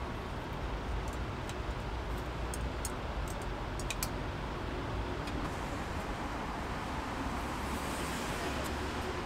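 Street traffic noise: a steady rumble and hiss of passing vehicles, with a few faint light clicks in the first half.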